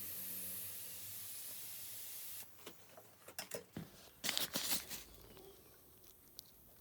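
A small electric motor running with a steady hiss and low hum, cutting off suddenly about two and a half seconds in; then a few clicks and a cluster of short, loud hissing bursts.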